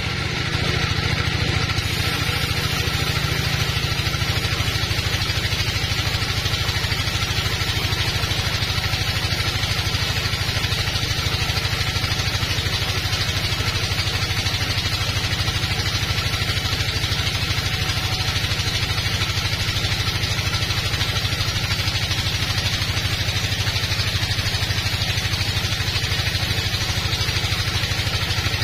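Sawmill band saw running and cutting through a teak log: a steady low machine drone under a constant higher hiss from the blade in the wood.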